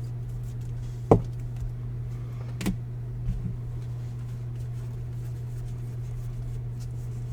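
Cards and plastic card holders being handled on a table: one sharp knock about a second in, a smaller one near the middle and a couple of faint taps, over a steady low hum.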